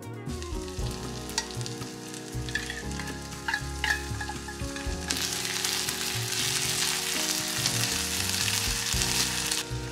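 Food sizzling in a frying pan, with a few light taps in the first four seconds. The sizzle gets much louder about halfway through and stops abruptly just before the end.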